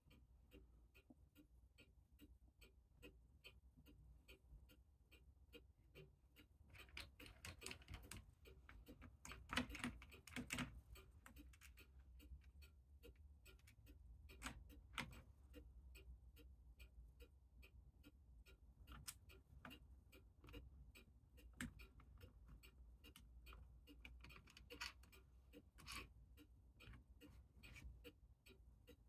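Faint, fast, steady ticking and clicking, with louder metal clunks and knocks around the middle, from a clock mainspring being handled in a mainspring winder.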